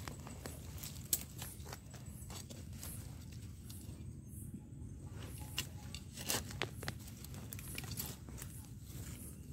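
Scattered crackles and clicks of a hand moving through dry leaf litter and soil while picking termite mushrooms, over a low steady rumble.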